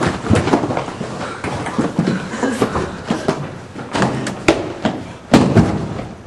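A run of irregular knocks and thumps, with the loudest thud about five seconds in.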